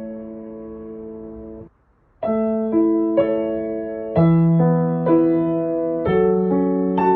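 Solo piano music in slow chords: a held chord fades and stops just under two seconds in, and after a brief pause new chords are struck one after another.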